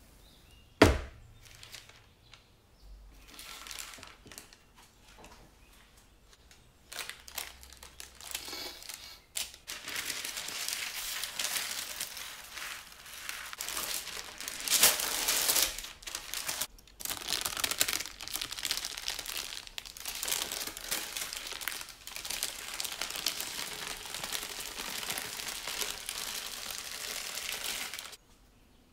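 Parchment baking paper rustling and crinkling as it is handled on a metal baking tray. It is patchy at first, then continuous from about ten seconds in, with its loudest crinkle about halfway through, and it stops abruptly near the end. A single sharp knock comes about a second in.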